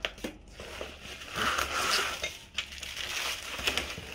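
Plastic packaging film crinkling and rustling as a plastic-wrapped mop head and pole are slid out of a cardboard box, with a few sharp clicks and knocks. The crinkling is loudest about one and a half to two seconds in.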